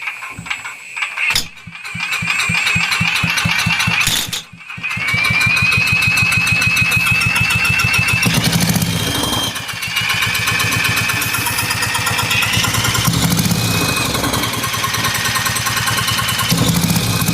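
Small single-cylinder Tecumseh generator engine sputtering as it starts, catching about two seconds in, nearly dying around four seconds, then picking back up and running steadily. A high, wavering whine rides over the engine's rapid firing.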